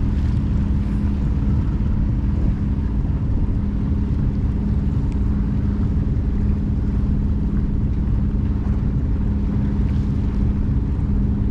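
Small sailboat's engine running steadily under way while motor sailing: a constant low drone with a steady hum that holds one pitch throughout.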